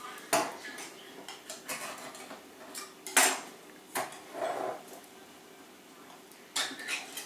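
Metal cookware and utensils clinking and clanking at a stovetop, a handful of sharp knocks with the loudest about three seconds in.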